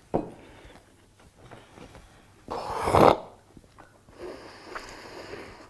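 A man breathing hard through his mouth and nose against the burn of a hot chili sauce, with one loud, sharp breath out about three seconds in and a longer hissing breath near the end.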